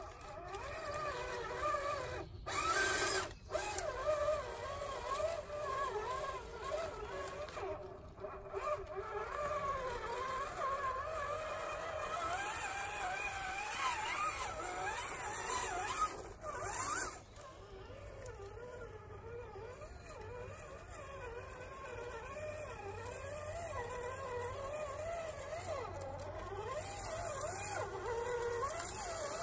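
Electric motor and geared drivetrain of an RC4WD Trail Finder 2 scale crawler whining, the pitch wavering up and down as the throttle is worked.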